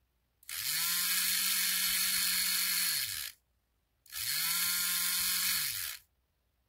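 Small brushed DC motor with a paper disc on its shaft, switched on with a push-button switch: it spins up to a steady high whir, then is switched off and winds down. This happens twice, a run of about three seconds and then one of about two seconds.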